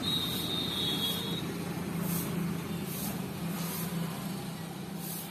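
An engine running steadily, a low hum, with a faint high-pitched whine over it for about the first second and a half.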